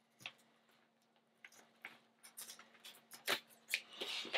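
Scissors snipping through the vinyl skirt strips of a marlin trolling lure to trim it to length: a string of short, faint, irregular snips, with rustling near the end.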